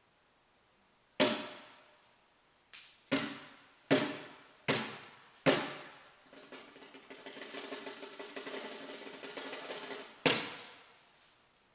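Sharp percussive hits, each ringing out briefly: six over about four seconds, then a steady held sound with several pitches for about four seconds, and one more hit near the end.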